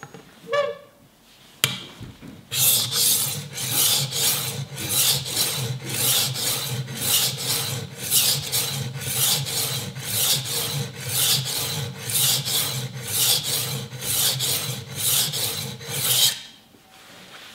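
Steel kitchen-knife blade stroked back and forth on a wetted coarse DMT diamond plate: a long run of even scraping strokes, about two a second, starting a couple of seconds in and stopping near the end. This is the coarse first grinding step, taking metal off fast to cut a new bevel on a very dull knife.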